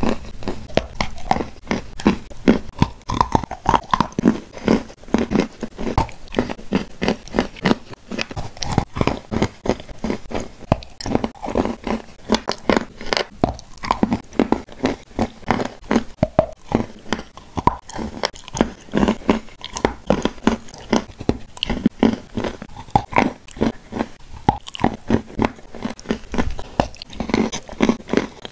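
Chewing and biting of shortbread cookies coated in clay paste and cream: a steady run of crunching and crackling mouth sounds, many small strokes a second.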